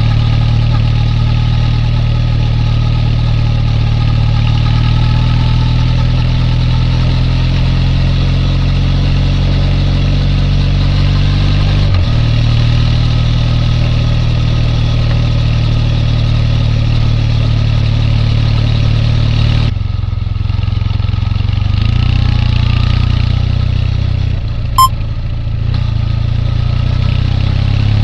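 Triumph Bonneville T214's air-cooled 360° crank vertical twin running at a steady engine speed. The note shifts slightly about two-thirds of the way through, and there is a single sharp click near the end.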